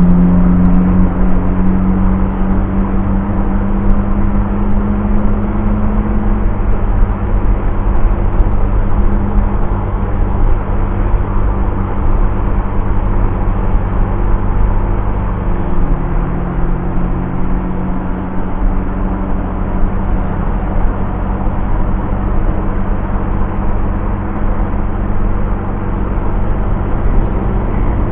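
Honda Vario scooter's engine running steadily at cruising speed, with wind and road rush over the microphone. The engine note shifts slightly a few times, about six seconds in and again midway.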